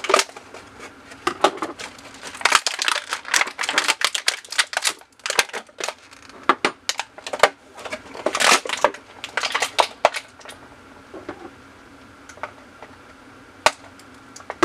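Plastic toy parts being cut free from their blister packaging: irregular runs of sharp clicks, snaps and crinkles, thinning to a few scattered clicks in the last few seconds.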